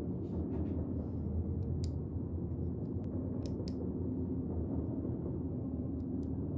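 Light clicks and taps of fingers handling a metal lightsaber hilt, with a pair of sharp clicks about six seconds in as its control-box switch is pressed and its lights come on, over a steady low hum.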